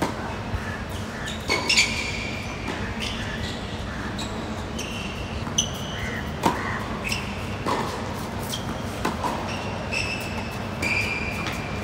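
Tennis serves and rallies on a hard court: sharp pops of racket strikes and ball bounces, roughly a second apart, mixed with short high squeaks of rubber-soled tennis shoes on the court surface.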